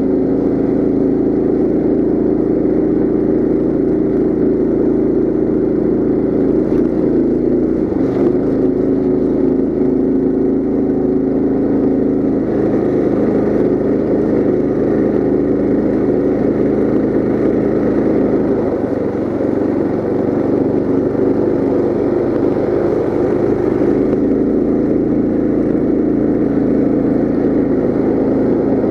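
Coleman CT200U mini bike's 196cc single-cylinder four-stroke engine running steadily under way through its CVT. The engine note shifts about eight seconds in and again a little past halfway.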